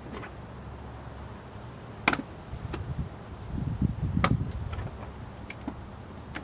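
A few sharp knocks, the loudest about two seconds in and another about four seconds in, with low thuds and shuffling between them: someone moving about and handling things in the back of a van.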